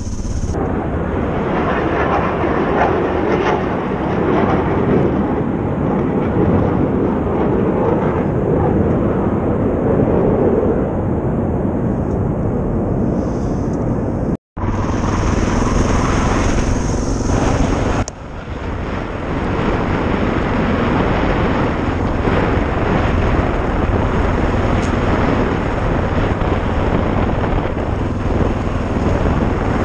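Suzuki DR650's single-cylinder four-stroke engine running steadily while riding. The sound drops out for an instant about halfway through.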